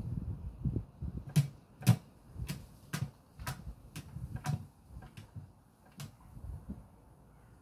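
Great grey owl's talons tapping on the hard base of an upturned plastic bucket as it steps and shifts its feet. There are about nine sharp taps, roughly two a second, each with a dull hollow knock, stopping about six seconds in.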